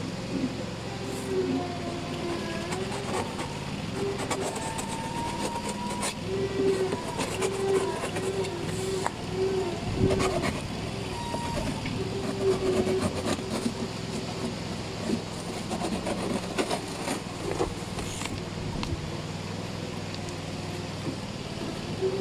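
A tractor engine runs steadily in the background while a cardboard box is pulled open, its flaps scraping and rustling with scattered clicks.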